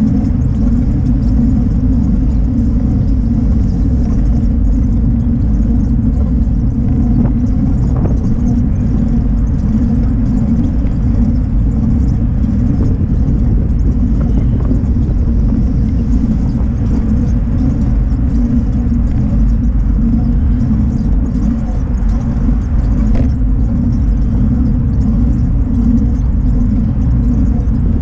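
Riding noise picked up by a camera mounted low on a moving bicycle: a steady low rumble of wind and road vibration, with a few faint knocks.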